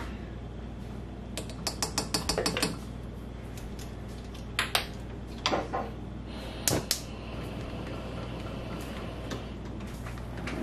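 Small kitchen clicks and clinks from a plastic measuring spoon and a small extract bottle being handled and set down on the counter at the stove. They come as a quick run of clicks in the first few seconds, then a few single knocks, over a steady low hum.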